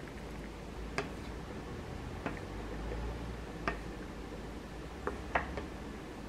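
Wooden spoon stirring yuja tea in a glass mug, tapping lightly against the glass about six times at uneven intervals.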